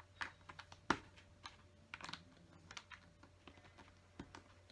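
Small plastic LEGO pieces clicking and tapping as they are handled and pressed into place: a scatter of light, irregular clicks, with a sharper one about a second in.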